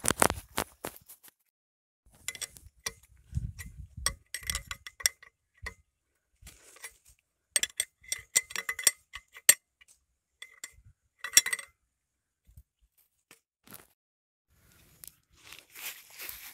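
Irregular metallic clinks and taps of a steel spanner and bolts being handled at the pump's metal flange, each with a short ring. They come in scattered clusters with quiet pauses between.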